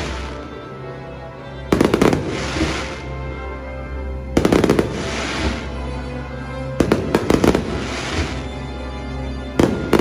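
Fireworks shells bursting in four volleys of rapid bangs, about every two and a half seconds, each volley followed by a fading crackle. Show music plays steadily underneath.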